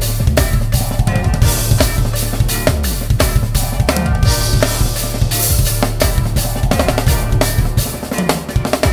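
Acoustic drum kit played with sticks, busy snare, bass drum and cymbal strokes in quick succession, over a trap backing track with a deep steady bass. The deep bass drops out briefly near the end.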